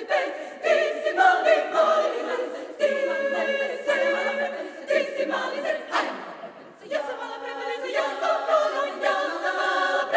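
Women's chamber choir singing a cappella, several voice parts sounding together in harmony, with a short pause about six seconds in.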